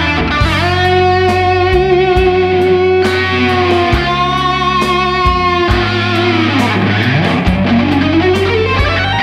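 Overdriven electric guitar lead, a Fender Stratocaster through a Mooer Micro Preamp at high gain, holding one long sustained note with slight vibrato, then sliding steadily up in pitch near the end. A drum kit and bass guitar play underneath.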